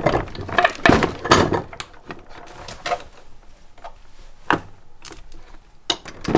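Green hand-lever press setting rivets in leather, giving a series of irregular metal clunks and clicks as the handle is worked. The knocks are loudest in the first second and a half and lighter after that.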